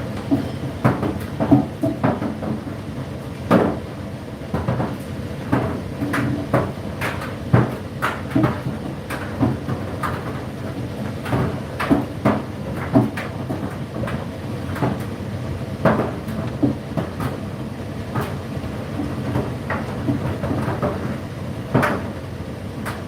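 Indesit IDC8T3 8 kg condenser tumble dryer running, its drum turning with a steady hum and irregular knocks, one every second or so, as the load tumbles.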